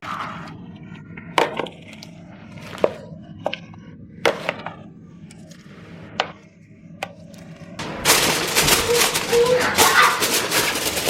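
Kitchen utensils knocking lightly a few times against a bowl or board. About eight seconds in this turns into a denser, louder clatter and rustle.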